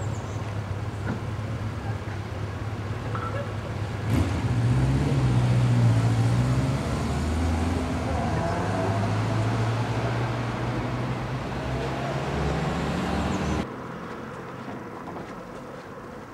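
Road traffic: a motor vehicle's engine running close by with a steady low hum. It gets louder about four seconds in and drops off abruptly near the end, leaving quieter street noise.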